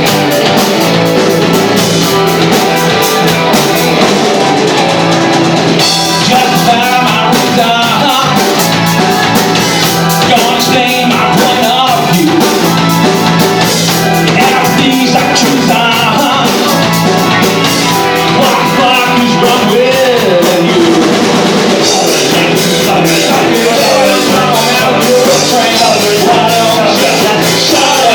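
Rock band playing live and loud: drum kit, guitars and a singing voice.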